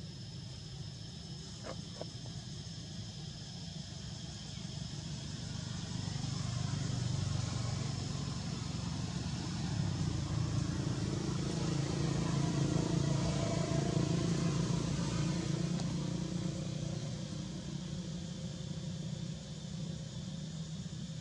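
Low rumble of a motor vehicle passing at a distance, swelling over several seconds and then fading, over a steady high-pitched drone.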